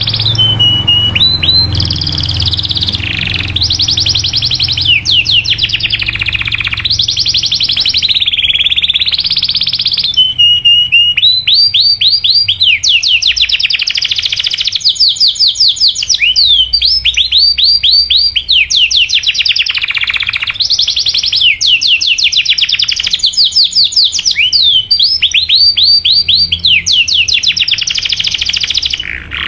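Domestic canary singing long rolled trills: rapid runs of repeated sweeping notes, one phrase after another with brief breaks between them.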